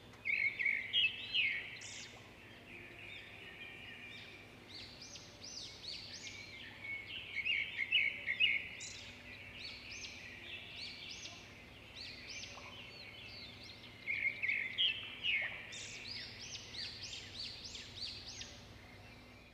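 Many small birds chirping and twittering in overlapping flurries, busiest near the start, around eight seconds in and around fifteen seconds in, over a faint steady hum.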